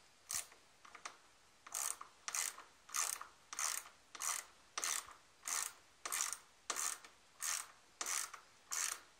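Hand ratchet with a 10 mm socket tightening a bolt in steady back-and-forth strokes. Each stroke is a quick run of ratchet clicks, about one every two-thirds of a second, starting about two seconds in.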